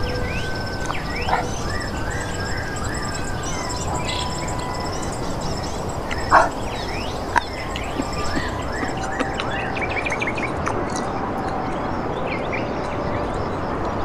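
Several birds calling and chirping: short rising and falling chirps and quick trills, over a steady background hiss. Two short clicks stand out about six and seven seconds in.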